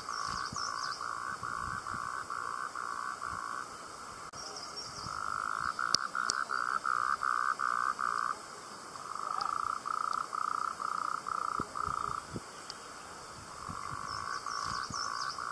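Rhythmic animal calling: repeated bouts of three to four seconds of evenly pulsed notes, about three a second, with a few faint high chirps and one sharp click about six seconds in.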